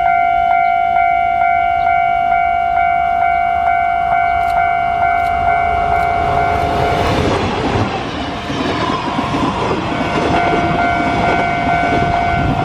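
Level-crossing warning bell ringing about twice a second, then a train passing from about seven seconds in, its rushing wheel and rail noise covering the bell for a few seconds before the bell is heard again.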